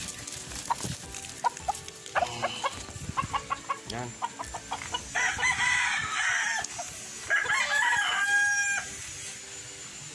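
Free-range chickens clucking in a quick run of short clucks, then two long rooster crows, the first about five seconds in and the second about two seconds later.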